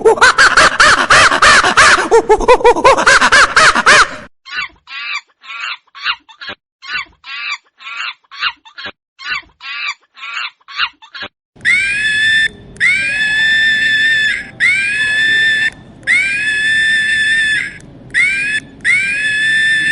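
Monkeys screaming and shrieking in a loud, dense chorus for about four seconds. Then comes a run of short, quick calls at about three a second. From about twelve seconds in there are long pitched calls, each about a second, that rise at the start and then hold, with short gaps between.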